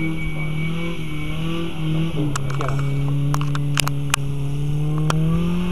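Small four-wheel-drive off-roader's engine running steadily under load as it climbs a muddy rutted track, its note rising near the end. A few sharp knocks sound in the middle.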